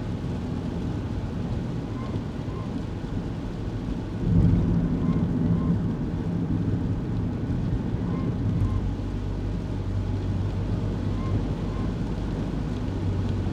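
Kei car engine running with road noise heard from inside the cabin while driving. The engine note gets louder and stronger about four seconds in, then settles into a steady hum. Faint short chirps repeat every second or two.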